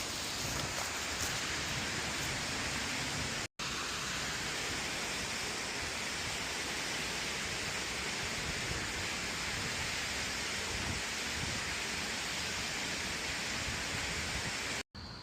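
Waterfall: a steady, even rush of falling water, cut off for an instant twice, about three and a half seconds in and near the end.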